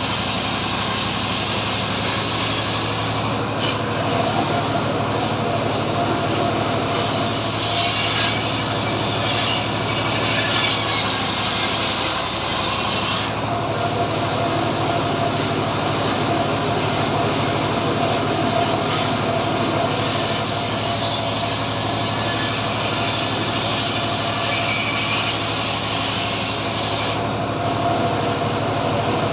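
Homemade engine-driven circular saw running steadily while its blade rips teak, the high hiss of cutting swelling and easing a few times as cuts go through.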